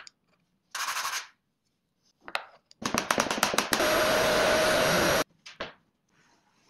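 Random orbital sander with a dust-extraction hose sanding a purpleheart wood panel: a loud steady whirring hiss with a held hum, preceded by a rapid clatter as it starts, then cutting off suddenly. A shorter hiss comes about a second in.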